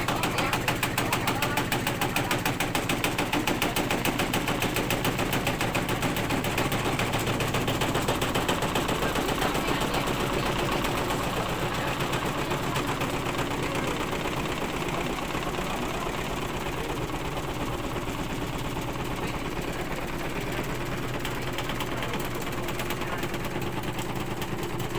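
Washing machine running with extreme vibration: a rapid, steady knocking that eases slightly about halfway through.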